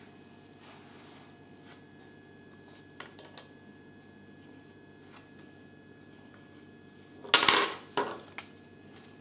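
Small hard plastic toy figurines being handled and set down on a table: a few faint clicks, then a louder brief clatter near the end.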